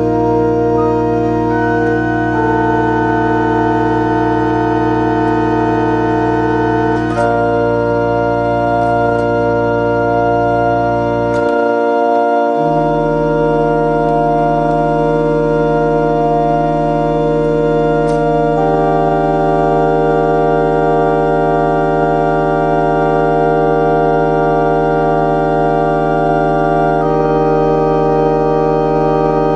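Antegnati pipe organ playing slow, sustained chords, the notes changing every few seconds over a held bass. The bass drops out about twelve seconds in and a new pedal note follows. A few light clicks sound over the chords.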